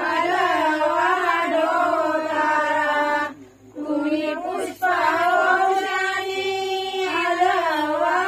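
Group of women singing a devotional song together, with long held, wavering notes and two short breath pauses near the middle.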